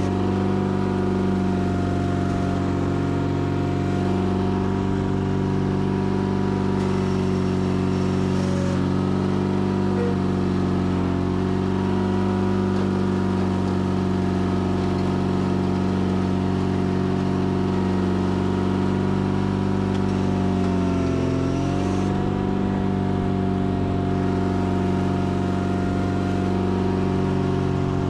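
Sears Craftsman FF24 garden tractor engine running steadily under plowing load, its pitch sagging briefly about two-thirds of the way through as it lugs, then recovering.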